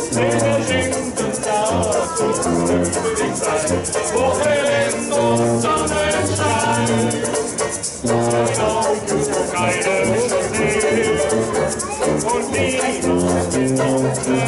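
Upbeat music with a fast, steady shaker rhythm over a bass line and a wavering melody.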